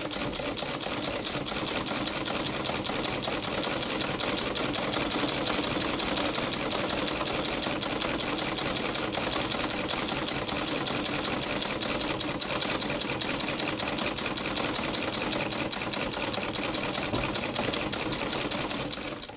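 Domestic treadle sewing machine sewing steadily, with a rapid, even clatter of stitching from its needle and shuttle mechanism under treadle power. It stops abruptly at the end.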